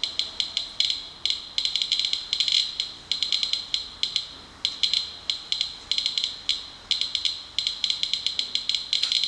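Inspector Geiger counter clicking fast and at random intervals as it counts radiation from a collected rain sample, reading a little over 500 counts per minute. That is several times the area's background, which the uploader puts down to radon rain-out.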